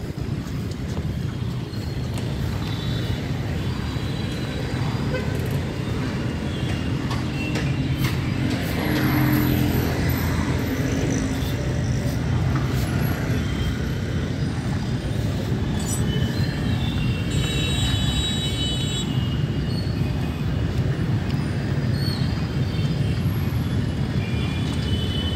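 Busy city road traffic: a steady rumble of passing vehicle engines and tyres, with horns honking. One horn is held for about two seconds about two-thirds of the way in.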